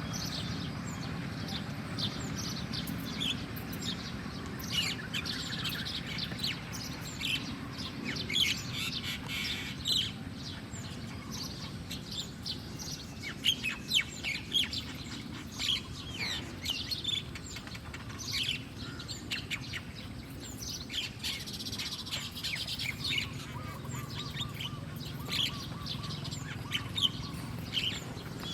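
Small birds chirping: many short, high chirps in quick, irregular series throughout, over a steady low rumble.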